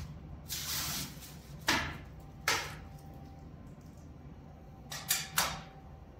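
Plastic bag rustling, then lumps of coal dropped into a small metal camp stove: two sharp knocks about two seconds in and a quick run of three near the end.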